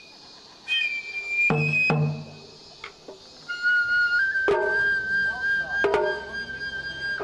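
Japanese festival music (matsuri-bayashi): a shinobue bamboo flute playing long held notes that step in pitch, dropping lower about halfway through, with a few single taiko drum strikes.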